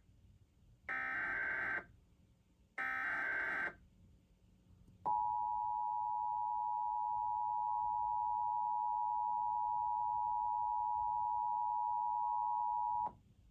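Emergency Alert System SAME header: two short bursts of digital data tones about two seconds apart, each under a second long. About five seconds in, the EAS two-tone attention signal (853 and 960 Hz sounded together) starts and holds steady for about eight seconds, then cuts off sharply. This opens a required monthly test of the alert system.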